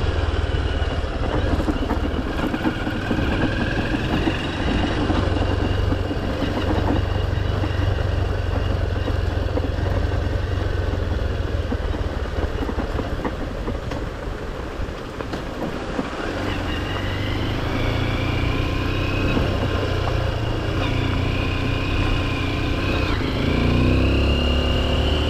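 Honda XR150L's single-cylinder four-stroke engine running under way, with wind noise. The engine eases off around the middle, then picks up again, rising in pitch, with another sharp rise near the end.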